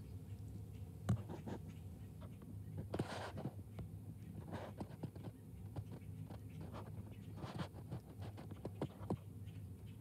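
Small bird feeding in a window feeder full of black sunflower seeds: irregular clicks and scratches of beak and feet on the seeds, with a sharp click about a second in and a few louder rustles of shifting seeds.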